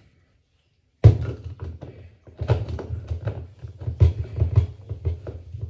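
Hard plastic clunks, taps and knocks of a small personal blender cup and its blade lid being handled and pushed on. The sounds start sharply about a second in and go on irregularly after that.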